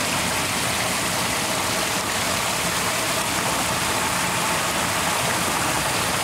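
Steady rush of water pouring and splashing into a muddy pool, unbroken and even in loudness.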